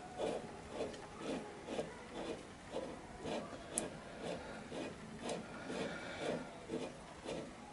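Restored tailstock of a Joinville bench lathe with its handwheel being cranked by hand, the quill and feed screw giving a rhythmic rubbing scrape about twice a second.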